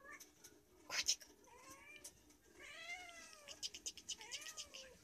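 Orange tabby cat meowing three times, each meow rising and falling in pitch, the middle one the longest. A loud sharp rustle comes about a second in, and a run of light clicks near the end.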